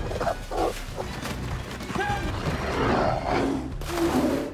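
Film soundtrack of music and sound effects, ending in a loud rough burst as a bear roars and splashes through water.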